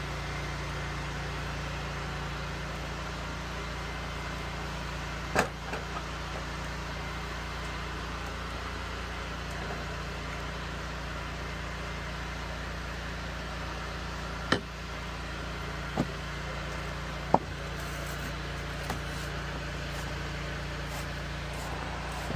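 Pressure washer's engine running at a steady drone, with a few sharp clicks over it.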